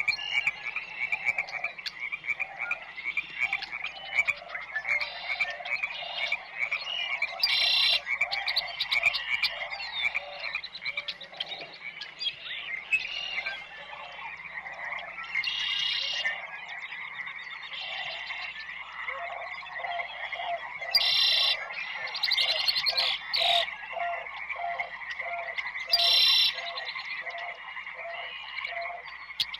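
A chorus of frogs croaking: a dense, steady trilling mass with a run of repeated lower croaks and a louder, sharper call every few seconds.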